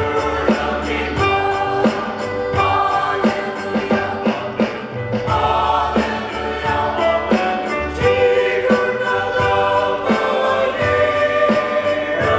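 Mixed choir of men and women singing a hymn, with a steady beat underneath.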